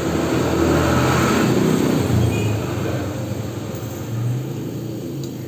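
A secondhand refrigerator compressor running steadily under load as it pumps pressure into a manifold gauge during a pressure test, a hum with a hissy edge that eases slightly after about two and a half seconds.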